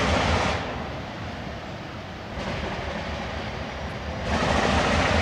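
Diesel locomotive of a ballast train approaching, its engine a steady low rumble. Two loud bursts of hiss, each about a second long, come at the start and near the end.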